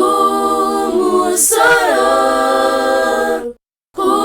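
A cappella choir singing a slow Shona hymn in close harmony, holding long chords that shift together about two seconds in. The singing cuts out briefly near the end.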